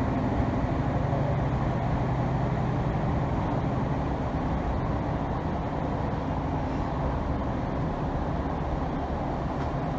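Running noise inside the cabin of a Class 150 diesel multiple unit in motion: a steady low drone from the underfloor diesel engine and the wheels on the rails, easing a little about four seconds in.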